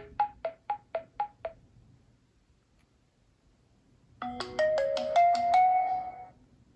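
Nokia 808 PureView ringtone melodies playing. A run of short plucked notes, about four a second, stops about a second and a half in. After a pause, a quick cluster of bright chiming notes starts about four seconds in and lasts about two seconds.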